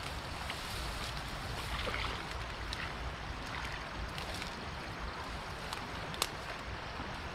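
Steady rush of flowing stream water, with a few faint clicks and one sharp click about six seconds in.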